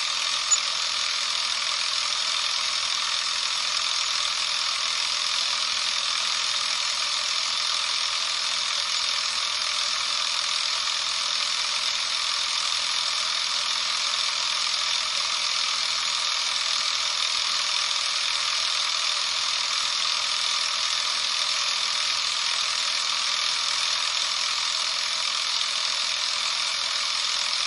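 Canon Super 8 film camera's drive running with the film hatch closed: a steady, even mechanical whir of motor and film transport, with one small click about half a second in.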